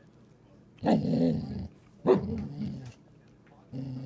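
Samoyed dog vocalizing: two low, drawn-out calls of about a second each, with a third starting near the end.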